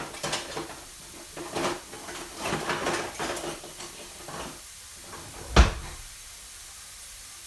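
Kitchen clatter of things being handled and knocked, then one loud bang of a kitchen cabinet shutting about five and a half seconds in.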